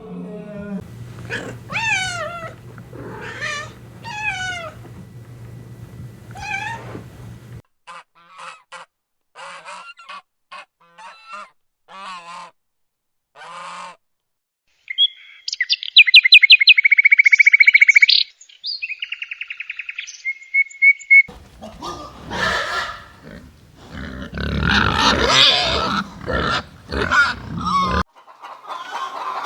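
A run of different bird calls: gliding, wavy calls over a steady low hum, then short chirps, then a loud rapid high trill, and harsher, noisier calls near the end.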